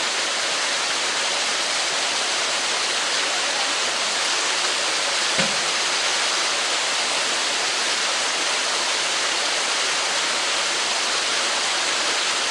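Steady rushing of running water, a constant hiss with little bass. There is one short, low thump about five and a half seconds in.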